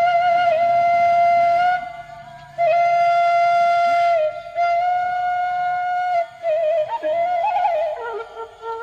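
Background music: a flute playing a slow melody of long held notes with small wavering ornaments, with a short break about two seconds in.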